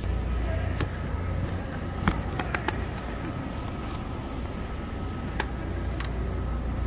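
Shopping cart rolling across a hard store floor: a steady low rumble from its wheels, with a few sharp clicks and rattles, several close together about two to three seconds in.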